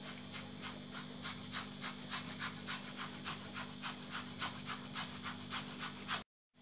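Boiled potato being grated on a metal hand grater over a steel plate: a soft, quick rasping scrape repeated about five strokes a second, cutting out for a moment near the end.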